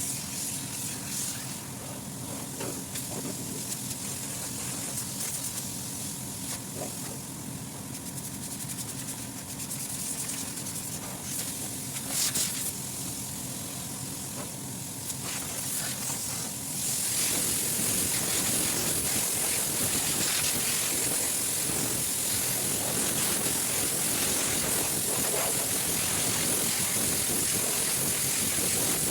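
Compressed air hissing as it is blown through a cold-storage refrigeration unit to clean it, over a machine's low steady hum. About 17 seconds in the hiss turns louder and fuller.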